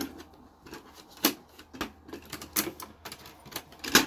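Plastic clacks and knocks of the HP LaserJet Pro M102w's paper tray and covers being pushed and closed by hand: a run of irregular clicks, the loudest about a second in and just before the end.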